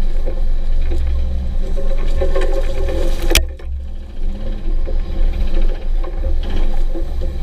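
1997 Jeep Wrangler TJ's 4.0-litre straight-six running under way with a fast rhythmic clatter: the knock the owner can't yet place between the engine and the transmission. A single sharp crack about halfway through.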